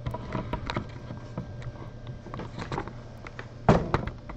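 Handling noise: scattered light clicks and rustles as the camera and boxes are moved about, with a louder thump a little under four seconds in, over a steady low hum.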